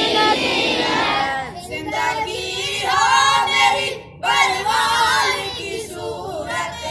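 Schoolboys singing a prayer (dua) together in a chant-like melody, phrase by phrase, with a short break about four seconds in.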